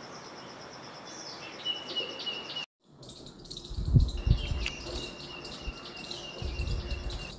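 Small birds chirping repeatedly over a steady, fast-pulsing high insect trill. The sound cuts out briefly about a third of the way in, and a few low thumps come near the middle.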